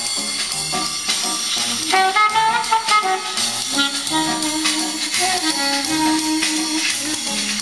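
Jazz music with a horn melody over drums, played over a hi-fi system into a cassette deck that is recording; a note is held from about four seconds in.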